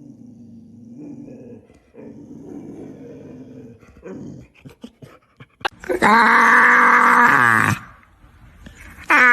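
Dog vocalizing: a low, rumbling growl for the first few seconds, then a loud drawn-out call about six seconds in that drops in pitch as it ends, and another loud call starting near the end.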